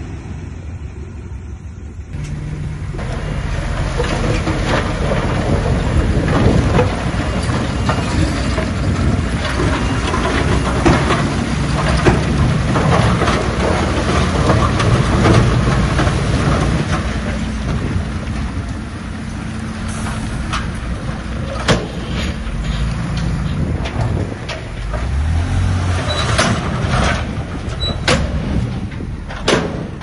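Heavy diesel earthmoving machinery running hard with a deep engine drone. It grows louder about two seconds in, and sharp metallic clanks come in over the second half.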